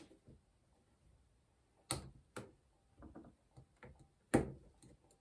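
A handful of sharp clicks and clinks from a Shimano FFS rear sprocket cluster as a retaining ring is pressed and worked onto it by hand. Two strong clicks come about two seconds in, a few lighter ones follow, and the loudest comes just past four seconds.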